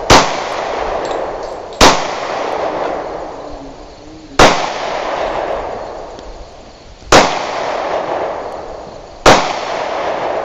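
Five single gunshots about two to three seconds apart, each very loud and followed by a long echo that fades away before the next shot.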